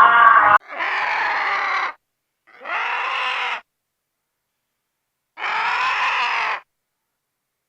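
A farm animal calling: three drawn-out cries of about a second each, with pauses between, after the end of a louder call in the first half second.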